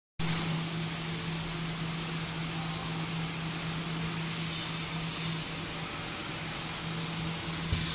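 An automatic cup packing machine and its chain conveyor running: a steady machine hum with a constant drone and hiss, with no distinct knocks or stops.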